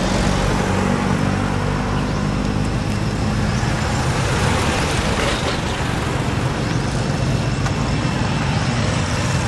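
Steady motor-vehicle traffic noise, with an engine's low hum strongest in the first few seconds.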